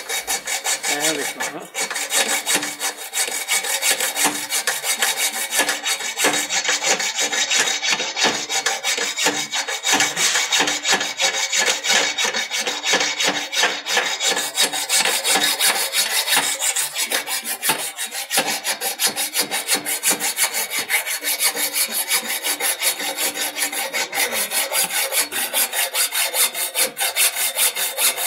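Hacksaw blade in a hand-held blade handle cutting through a metal stopper bracket on a scooter frame, sawn with continuous rapid back-and-forth strokes, each stroke a harsh metal-on-metal rasp.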